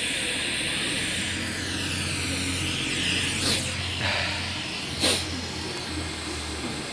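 A steady loud static hiss from the speakers of a freshly powered Sony LED TV, with a low hum underneath. Two sharp clicks come about halfway through.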